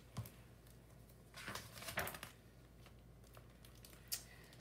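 Faint rustling of a picture book's paper pages being turned, a few soft swishes with a light tap near the end.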